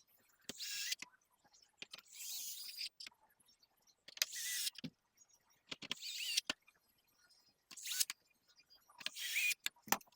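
Small electric screwdriver running in about six short bursts, its motor whine wavering in pitch, as it drives screws.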